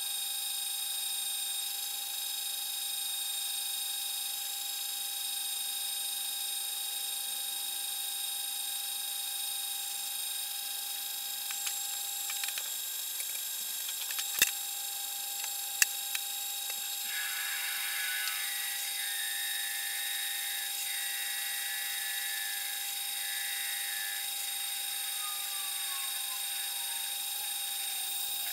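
Metal lathe running with a steady whine while a drill in the tailstock chuck cuts into the spinning metal workpiece, throwing off swarf. There are a few sharp clicks around the middle and a scratchy cutting noise a little past halfway. Near the end a tone slowly falls in pitch.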